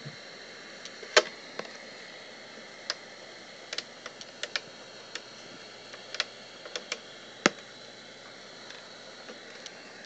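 Old small TV hissing with static, tuned to no station, a steady even hiss. Irregular sharp clicks and crackles sound over it every half second or so, the loudest about a second in and about seven and a half seconds in.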